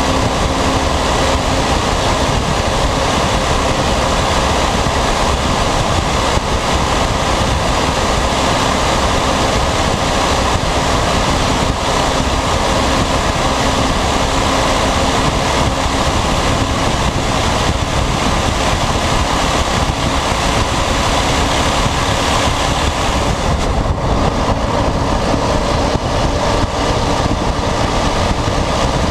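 Volvo FMX 460's 13-litre straight-six diesel running steadily at road speed, loud through a broken exhaust that leaves it effectively straight-piped, blended with a constant rush of road and air noise.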